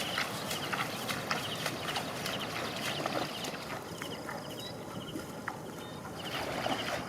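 Outdoor ambience with a small animal calling in short, high, repeated chirps, over a steady noise with scattered clicks.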